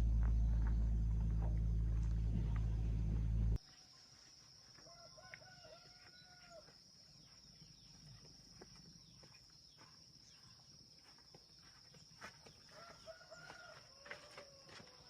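A loud, steady low hum cuts off abruptly about three and a half seconds in. After it a rooster crows twice over a steady high-pitched insect drone, with scattered faint clicks.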